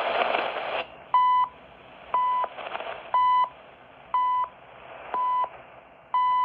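CHU Canada shortwave time signal received on a ham radio: 1000 Hz tone pulses once a second, each about a third of a second long, over faint band hiss. Loud static fills the first second before the pulses begin.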